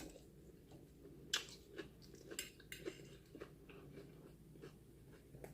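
Faint eating sounds: a few scattered light clicks of cutlery on a plate, with quiet chewing between them.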